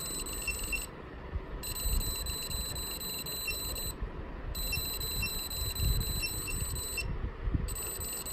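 Piezo beeper on a Bibox Hornbill board sounding a steady, high-pitched electronic tone in stretches of about two and a half seconds, cut off briefly three times. The beeper is switched on and off by the distance sensor as a hand moves in front of it, which shows the motion-sensor program is working.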